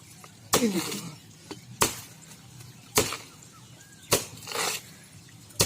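A dauli (heavy chopping blade) hacking into the thick trunk of a banana plant: five hard chops, a little more than a second apart. The trunk is too thick to cut through in one stroke.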